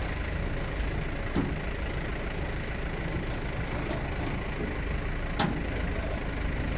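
Flatbed tow truck's engine idling steadily, with two short knocks, one about a second and a half in and another about five and a half seconds in.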